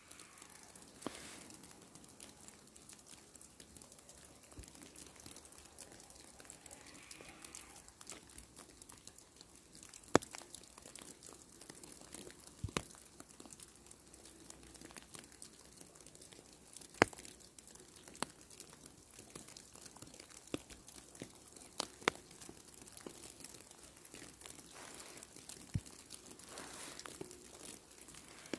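Falling snow landing with a faint, steady crackling patter, with a few sharper ticks scattered through it.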